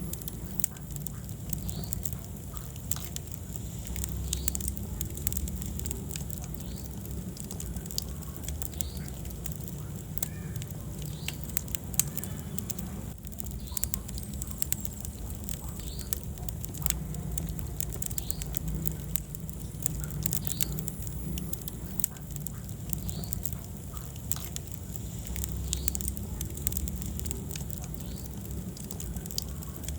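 Wood fire burning in a fireplace, crackling with irregular sharp snaps and pops over a low steady rumble of the flames, one snap louder than the rest about twelve seconds in.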